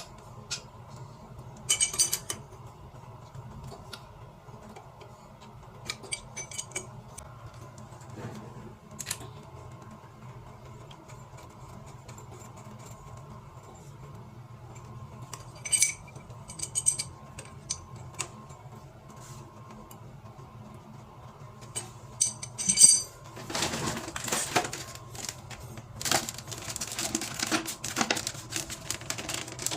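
Light metallic clinks and clicks, scattered and irregular, as plumbing fittings and tools are handled. From about 23 seconds in, a denser, continuous rustling noise joins in.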